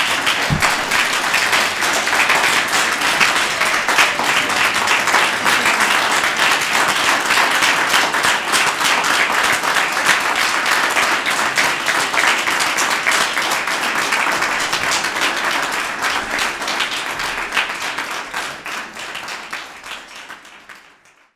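Audience applauding: dense, steady clapping from many hands that dies away over the last few seconds.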